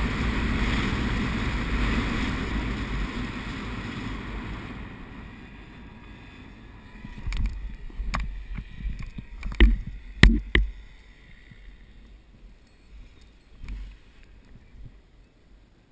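Steady rushing of air over a helmet-mounted camera during a powered paraglider's low approach, dying away over the first five or six seconds as the pilot slows to land. Then a series of sharp knocks and thumps, the loudest two close together about ten seconds in, as the pilot touches down and the wing comes down.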